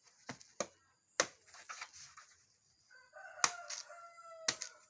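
A rooster crows once, a call of nearly two seconds starting about three seconds in and sinking slightly in pitch. Sharp chopping knocks fall before and during it.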